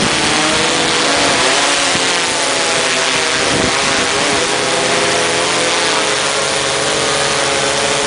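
Mariner waterproof quadcopter's four electric motors and propellers whining as it hovers close overhead. The pitch wavers up and down as the motors speed up and slow to hold position against a strong wind, over a steady rushing hiss.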